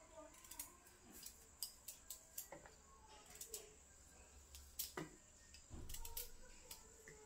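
Faint, irregular crisp clicks of a small knife cutting through a hard raw sweet potato held in the hand, with a soft knock about six seconds in.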